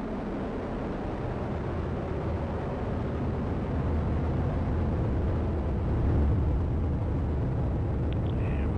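ULA Vulcan rocket in powered ascent on its two BE-4 main engines and two solid rocket boosters: a steady, deep rumble that grows a little louder about four seconds in.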